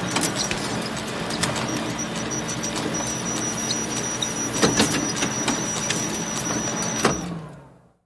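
Photocopier running: a steady mechanical whir with a low hum and a thin high whine, with clicks now and then and two sharp clacks close together about halfway through. It fades out in the last second.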